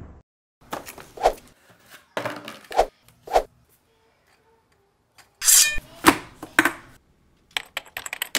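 A quick-cut series of close-up desk-handling sounds: short knocks and clicks, pens rattled and pulled from a tin pen cup, and a fast run of keyboard typing near the end.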